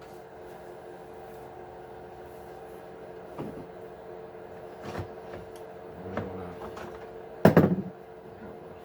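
Light clicks and knocks of small RC truck parts and tools being handled on a work surface, with one louder clatter about seven and a half seconds in, over a faint steady hum.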